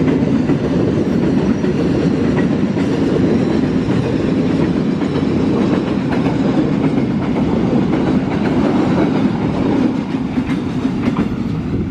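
Container freight train's flat wagons rolling past close by: a steady, loud rumble of steel wheels on rail, with clickety-clack over the rail joints. The last wagon goes by near the end and the noise eases a little.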